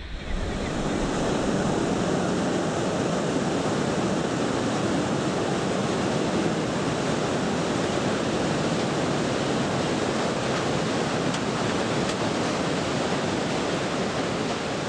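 Steady roar of the Iguazu Falls' falling water and heavy spray at close range, beginning abruptly.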